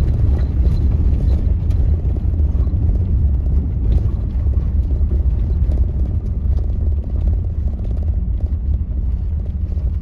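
A vehicle driving slowly over a rough dirt road, heard from inside the cabin: a steady low rumble of engine and tyres.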